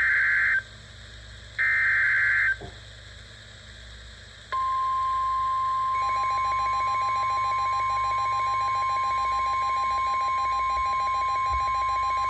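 NOAA Weather Radio alert start: the warbling SAME digital header data burst plays, the last two of its three one-second repeats falling here, then after a short pause the steady single-pitch 1050 Hz warning alarm tone sounds, with a fainter rapidly pulsing tone under it from about halfway in. It signals that a severe thunderstorm warning message follows.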